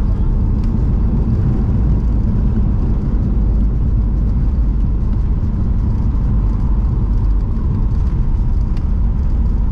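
Cabin noise inside a Boeing 737-800 rolling along the runway just after landing: a loud, steady low rumble from its CFM56 jet engines and the aircraft moving on the ground.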